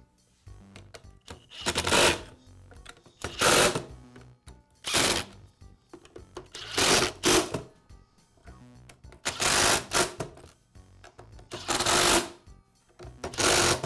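Power screwdriver driving the handle-housing screws home in a series of short bursts, each under a second, with gaps of a second or so between them.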